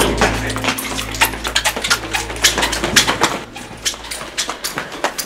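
Quick running footsteps on a hard floor, a fast irregular string of knocks. A low steady hum underneath stops about three and a half seconds in.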